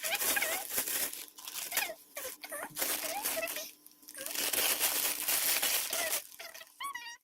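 Thin plastic bag crinkling as soft squishy toys are packed into it, with a denser stretch of rustling past the middle.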